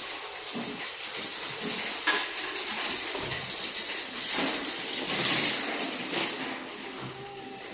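Metal shopping carts rattling and clinking as they roll over a tiled floor, with many small metallic clicks over a steady hiss of store noise.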